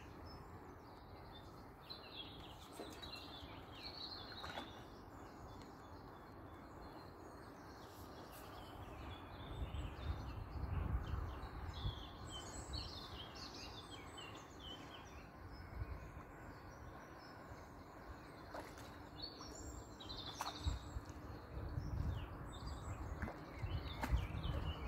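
Small songbirds chirping and trilling in short phrases throughout. A low rumble on the microphone swells about ten seconds in and again near the end.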